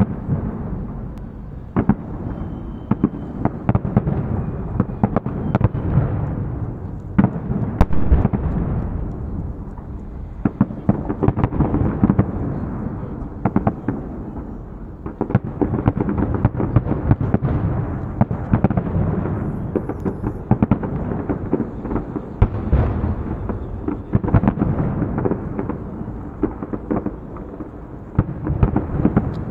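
Fireworks display: aerial shells bursting in a continuous barrage, with many sharp bangs over a steady low rumble.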